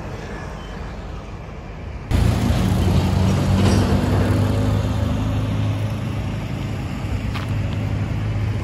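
Steady low hum of motor-vehicle traffic or a running engine, jumping abruptly louder about two seconds in.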